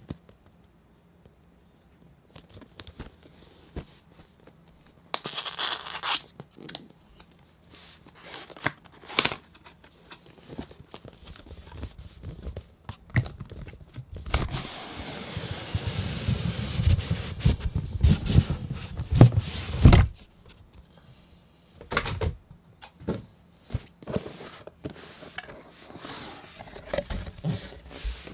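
Cardboard graphics-card retail box being handled: scattered taps and knocks, a short scrape about five seconds in, and midway a long rubbing scrape of about five seconds as the inner box slides out of its printed outer sleeve. Near the end the inner box's lid is opened.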